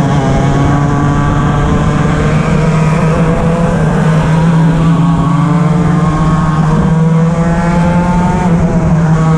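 Racing kart engine running hard at high revs, its pitch held fairly steady with small rises and dips, climbing about six seconds in and dropping back near the end. Other karts' engines run close by.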